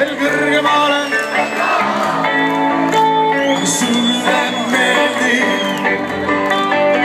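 Live band playing amplified music, with electric guitar and singing, heard from among the audience. A long high note is held from about halfway through until near the end.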